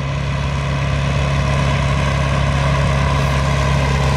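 Vintage tractor engine running steadily under load as it pulls a weight sled slowly in first gear, its loudness building a little.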